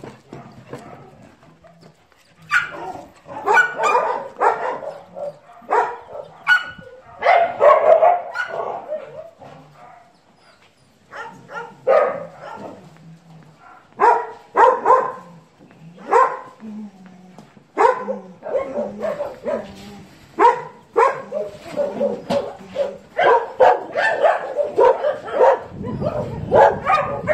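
Several dogs barking in short, repeated barks. There is a brief lull about ten seconds in, and the barks grow denser and overlap over the last third.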